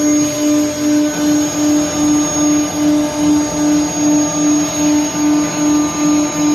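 CNC woodworking lathe running, with a steady hum that pulses evenly about two and a half times a second, a thin high whine above it and a hiss of machine noise.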